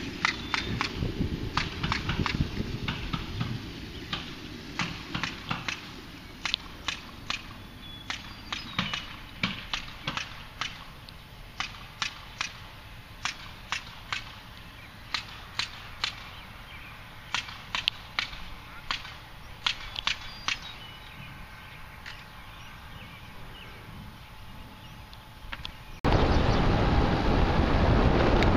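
Sharp, irregular hammer blows from a crew framing a house some way off, coming in quick runs of several a second at times. About two seconds before the end, a loud rush of wind on the microphone of a moving bicycle takes over.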